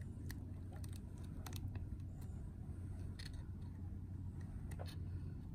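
Small, irregular metallic clicks and ticks of pliers handling a fishing hook on its line, over a steady low hum.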